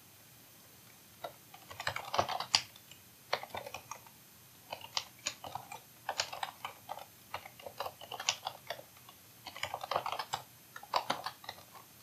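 Typing on a computer keyboard: quick runs of key clicks in short bursts, with brief pauses between them.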